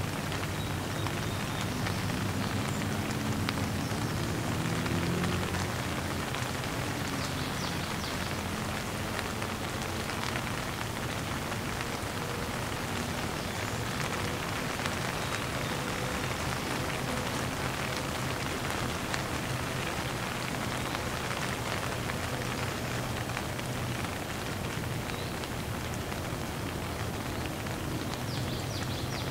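Heavy downpour of rain, a dense, steady hiss of countless drops that keeps an even level throughout.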